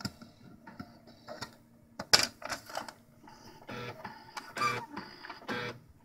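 Plastic clicks, rattles and short scrapes from an HP Deskjet 2050 inkjet printer as its paper output and input trays are opened, over a faint steady hum.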